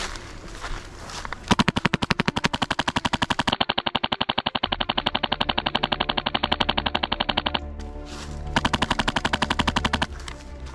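Airsoft rifle firing on full auto: a rapid, even rattle of shots starting about a second and a half in, a long burst, a brief lull, then a second burst that stops shortly before the end.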